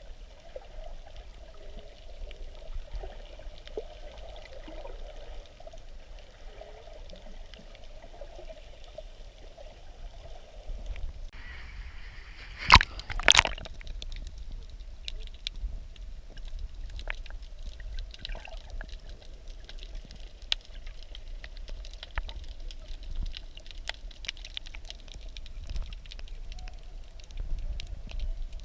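Water sloshing and gurgling around a snorkeller's camera, with two sharp knocks about halfway through and scattered faint clicks afterwards.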